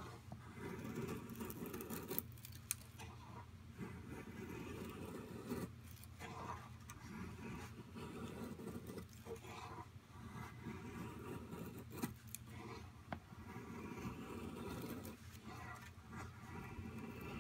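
A KA-BAR Becker BK2 knife blade shaving thin curls off a wooden stick to make a feather stick: a long series of scraping strokes, each about a second long, with a few sharp clicks among them.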